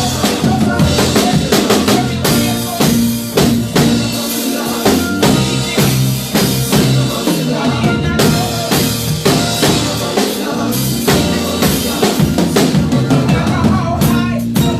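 Gospel band playing an instrumental passage, a drum kit keeping a steady beat with bass drum, snare and rimshots under the other instruments.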